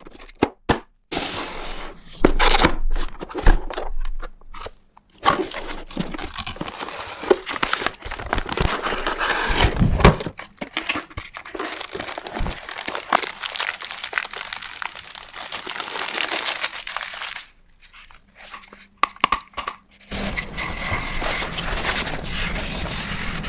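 Packaging being handled during an unboxing: irregular crinkling, rustling and tearing with sharp crackles. It quietens to a few clicks, and near the end a steadier noise with a low hum takes over.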